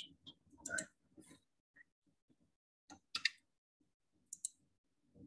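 Sparse, quiet clicks of a computer mouse and keyboard, a few single clicks and a quick cluster about three seconds in, with silent gaps between.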